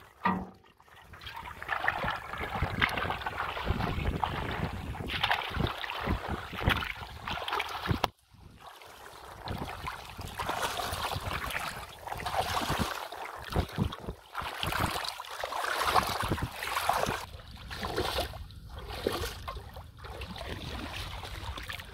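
Shallow water sloshing and splashing as a person wades through it, moving a metal pot along in the water, in irregular surges; the sound drops out briefly about eight seconds in.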